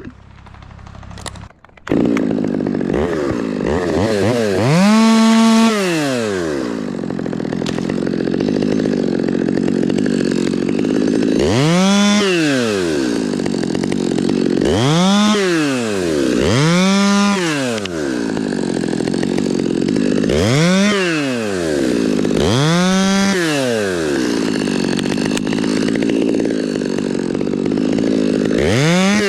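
Two-stroke chainsaw running, revved up to high speed and let back down about seven times, with steady running between the revs. It cuts out briefly right at the start before coming back in.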